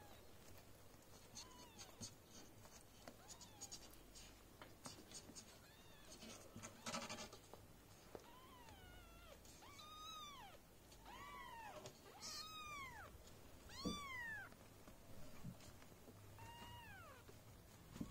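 Newborn golden British kittens mewing: a run of short, high mews that each rise and fall in pitch, coming thickest from about eight seconds in. A burst of soft scratching and rustling comes about seven seconds in.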